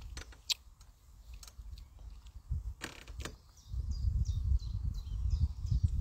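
A few sharp clicks, then from about four seconds in, wind buffeting the microphone with a low rumble. Over the wind, a bird repeats quick, high, falling notes.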